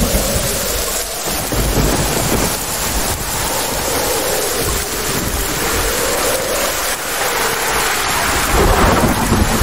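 Thunderstorm: steady heavy rain with rolling thunder rumbling underneath, swelling louder near the end.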